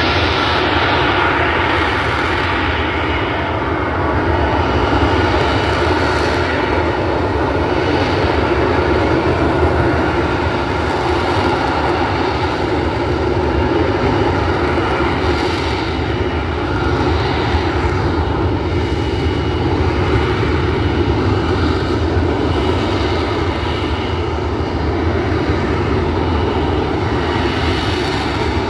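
F-35B Lightning II's jet engine running at hover power, its exhaust nozzle swivelled downward: a loud, steady jet noise with slight swells in its hiss.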